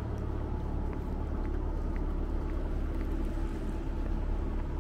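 A motor's steady low hum with fixed low pitches, and faint light ticks about twice a second.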